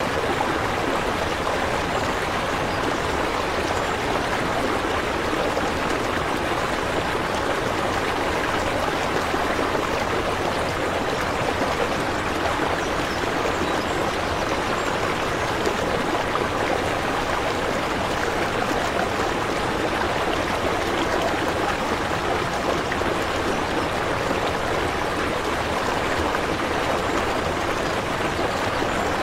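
Steady rush of running water, an even splashing flow without pauses or changes.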